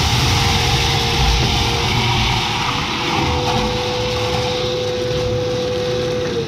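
Vacmaster shop vacuum running with a steady whine, its hose sucking leftover soybeans out of a seed drill's hopper. Right at the end the motor is switched off, and the whine starts to fall in pitch as it winds down.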